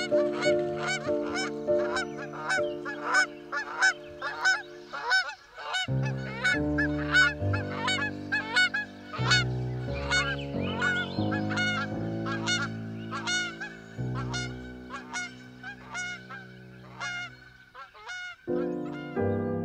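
Waterfowl calling over and over, about two short calls a second, thinning out near the end. Slow held keyboard chords sound underneath.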